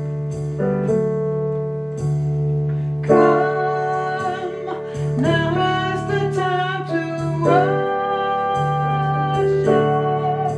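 Music: a song with instrumental accompaniment, and a singing voice coming in about three seconds in.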